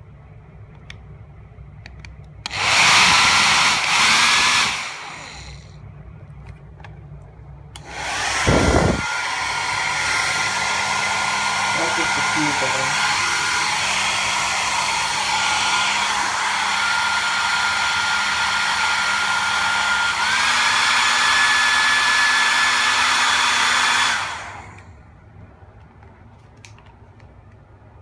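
Vidal Sassoon hair dryer switched on for about two seconds and off, then on again and running steadily for about sixteen seconds, a rush of air with a motor whine. Near the end of the run the whine steps up in pitch, and then the dryer is switched off.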